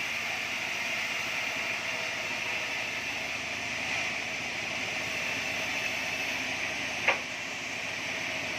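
Band sawmill running steadily with a constant machine noise. A single short sharp knock comes about seven seconds in.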